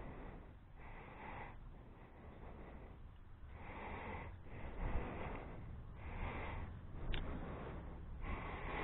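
A person breathing close to the microphone, a series of breaths over a low rumble, with one short click about seven seconds in.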